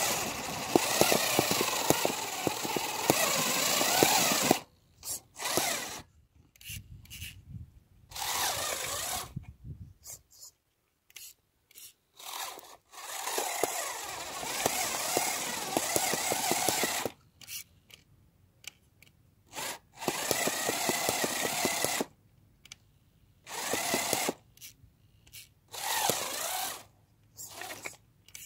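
Homemade RC car's drive motor and gears whirring in bursts as the throttle is applied and released. There is a long run of about four and a half seconds at the start, then several shorter runs and brief blips, with quiet pauses between them.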